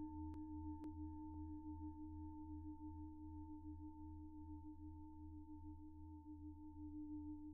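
Tibetan singing bowl ringing on with several steady tones and a slow wavering beat. A few sharp clicks about twice a second die out within the first two seconds.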